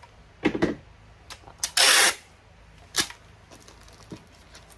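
Clear tape being unrolled from a handheld tape dispenser, with a short loud rasp of tape coming off the roll about two seconds in. A knock comes just before it and a sharp click about a second after.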